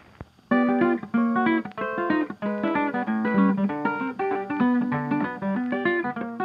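Background music of plucked acoustic guitar, a run of separate picked notes starting abruptly about half a second in.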